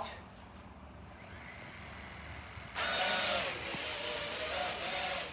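Small electric toy jet drone's motors and propellers spinning up: a faint hiss at first, then a loud high whir that starts suddenly a little before the middle, its pitch dipping slightly, and holds steady.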